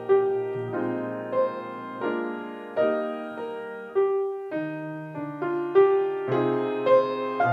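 Grand piano playing a slow, gentle solo passage: notes and chords struck about twice a second, each ringing and fading before the next.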